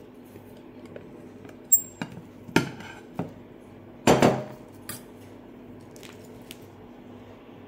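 Glass dome cover lifted off a glass plate and set down, with a series of sharp glass and cutlery clinks and knocks. The loudest are one clink about two seconds in that rings briefly and a cluster about four seconds in, with lighter taps of a fork on the plate near the end. A faint steady hum runs underneath.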